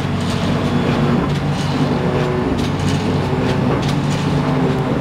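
1989 TMZ E 106 automatic flatbed die-cutting machine running, with a steady low hum and repeated sharp clacks as it cycles.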